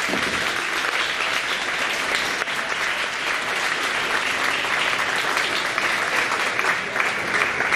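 Audience applauding in a hall: steady hand clapping from many people, tapering off near the end.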